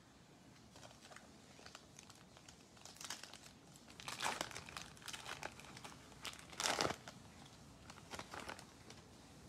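Plastic wrapper of a Topps baseball card pack crinkling as it is torn open by hand, in faint, scattered crackles that are loudest about two-thirds of the way through.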